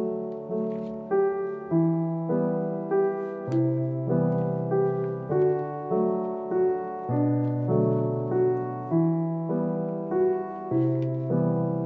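Background piano music: a gentle melody of steady, evenly paced notes, each one fading after it is struck.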